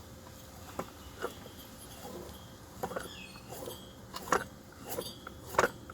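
Scattered light clicks and knocks, about one a second, of a broken concrete saw's covers and parts being handled.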